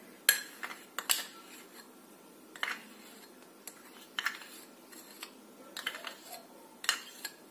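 Steel spoon scraping and clinking against a small glass bowl while thick condensed milk is scooped out, as a handful of scattered light taps and short scrapes.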